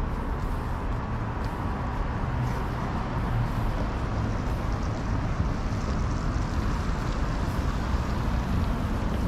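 City street traffic: a steady low rumble of vehicle engines and tyres, with no single event standing out.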